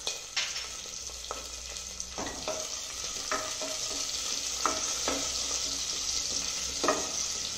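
Chopped garlic, green chillies and cumin seeds sizzling in hot ghee in a pressure cooker, a tadka being fried. A spatula scrapes and taps against the pot every second or so as the spices are stirred.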